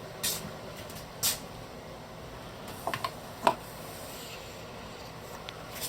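Quiet interior room tone with a few brief soft clicks and ticks, two about a second apart near the start and a small cluster a little past the middle.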